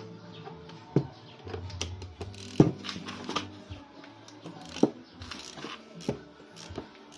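Metal clinks and about four sharp knocks from a spark plug socket and wrench being fitted and turned counterclockwise to loosen an old spark plug, over background music.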